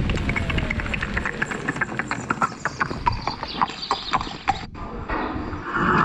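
Synthetic horse-hoof clip-clop sound effect played by an electric unicycle's AVAS speaker. The hoofbeats come more slowly as the wheel slows, since the effect follows riding speed. A brief noisy burst follows near the end.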